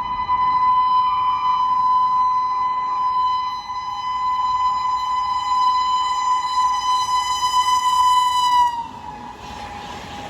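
A train horn sounding one long, steady blast. About nine seconds in it dips slightly in pitch and falls much quieter, then carries on faintly.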